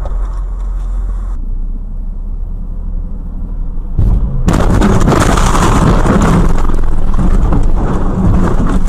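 Dashcam car-cabin audio: a steady low engine and road rumble, with an abrupt change about a second and a half in. From about four and a half seconds a much louder rough noise full of crackles and knocks sets in.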